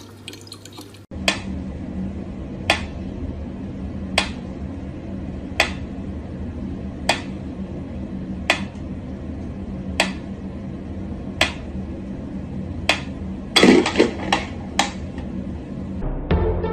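Mechanical pendulum metronome ticking slowly and evenly, about one sharp tick every one and a half seconds, over a low steady hum. Near the end comes a quick flurry of louder clicks and knocks.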